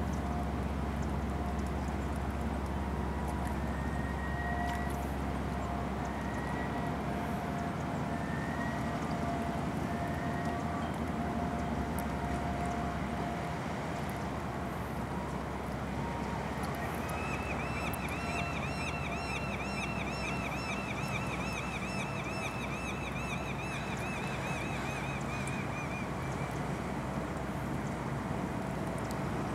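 Steady low rumble of the Issaquah-class car ferry M/V Sealth's engines and churning propeller wash as it comes in to dock. A faint warbling high-pitched tone, like a distant siren, is heard for several seconds past the middle.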